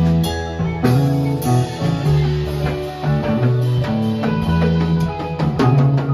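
A live band playing together: electric bass, electric guitar, drum kit and keyboard, with a steady bass line under regular drum and cymbal hits.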